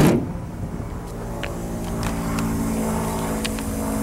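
The boot lid of a 1989 Rolls-Royce Corniche II shut with a single thud at the start, then the car's V8 idling steadily, with a few faint clicks.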